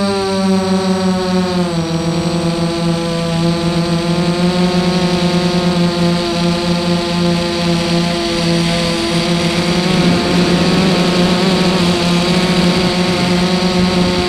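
FPV drone's electric motors and propellers buzzing, heard through the onboard camera's microphone. The pitch drops about two seconds in, then holds steady.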